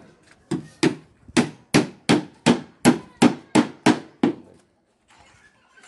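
Hammer blows, about a dozen sharp strikes in quick succession at roughly three a second, stopping a little past four seconds in.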